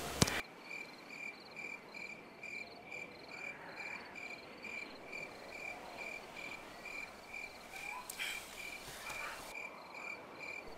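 A cricket chirping steadily at night, faint short chirps about twice a second.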